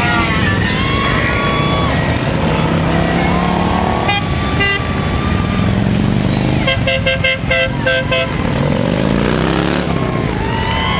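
Several motorcycles running and pulling away one after another, with horns tooting: a short honk about four seconds in and a quick string of toots a few seconds later. Near the end an engine revs up as a bike accelerates.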